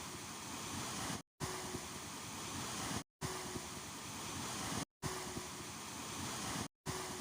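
Calm sea waves washing as a steady hiss of surf, played as a short loop that repeats about every two seconds, each repeat broken by a brief total dropout, four times in all.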